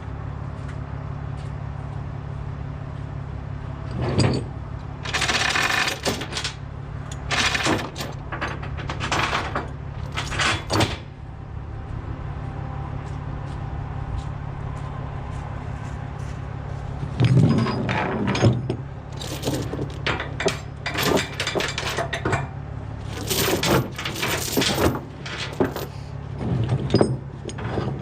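Steel tie-down chains clanking and rattling in repeated bursts as they are handled, over an engine idling steadily. The clatter comes in two spells with a pause of a few seconds between them.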